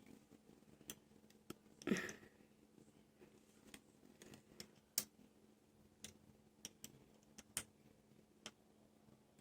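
Faint, scattered light clicks and taps of small parts being handled, with a brief rustle about two seconds in.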